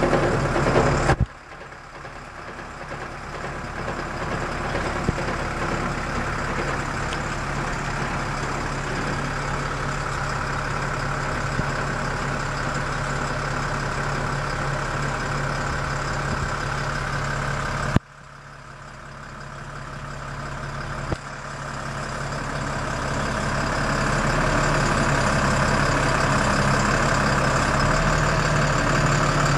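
Volvo FL6 truck's diesel engine idling steadily. The sound drops away abruptly twice and swells slowly back up.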